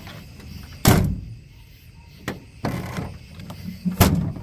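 Tailgate latch of a 2000 Ford F-150 being worked and the tailgate clunking, with two sharp clunks about three seconds apart and smaller clicks and a rattle between. The latch now releases, its loose linkage rods just tightened.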